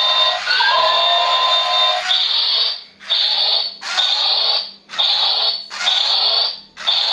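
Toy remote-control robot walking, its drive motors and gears giving a loud whirring buzz that runs continuously at first, then from about two seconds in comes in regular pulses about once a second.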